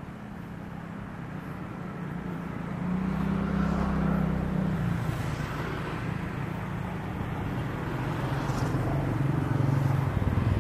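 Bombardier Global 7500's twin turbofan jet engines running as the jet rolls along the runway, a steady roar with a low hum that grows louder.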